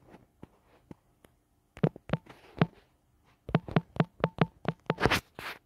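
Taps on a smartphone's on-screen number keypad as a phone number is entered: three taps, a pause, then a quick run of about eight. A short hiss follows near the end.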